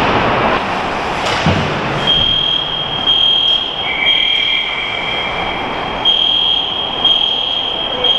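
Building fire alarm going off: a steady high electronic tone that swells about once a second, starting about two seconds in, with a second, lower tone joining it for a couple of seconds.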